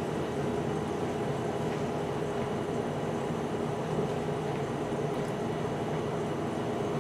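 Room air-conditioning unit running, a steady hum and hiss with a constant tone.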